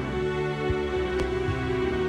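Music with sustained, held notes, and a couple of brief sharp ticks within it.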